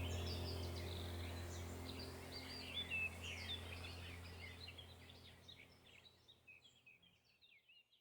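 Rainforest birds chirping and twittering in quick high calls over a low steady hum, the whole mix fading out to silence near the end.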